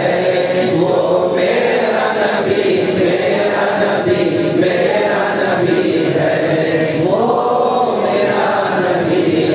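A man chanting an Urdu naat in praise of the Prophet, his voice held in long melodic lines that rise and fall without pause.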